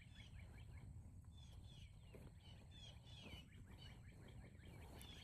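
Faint birdsong outdoors: many quick, falling chirps repeated throughout, over a low background rumble.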